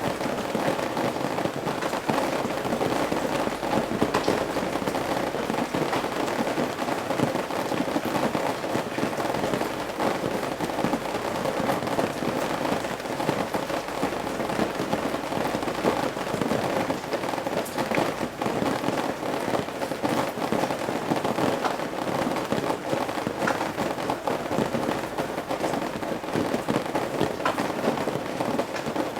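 Rain falling on and dripping from the eaves of a roof: a steady, dense patter of many separate drop impacts.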